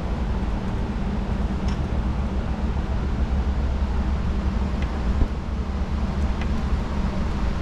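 Steady low hum and hiss of shop background noise, with a few faint light metal ticks as a pry bar works at an engine cover.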